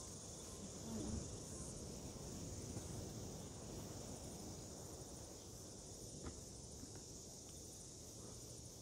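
Steady, high-pitched chirring of insects, with a single faint knock about six seconds in.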